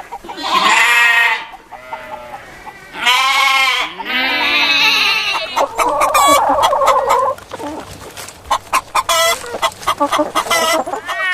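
Chickens clucking and squawking: several loud, drawn-out calls with a wavering pitch in the first half, then a run of quick, short clucks.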